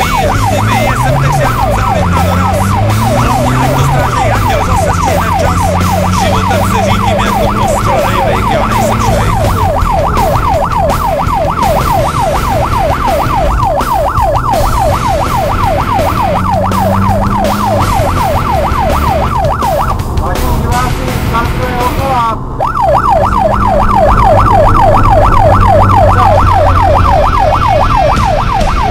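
Electronic music with a siren-like synth: a rising whoop repeating about three or four times a second over low held notes that slide in pitch, with a brief break about twenty seconds in.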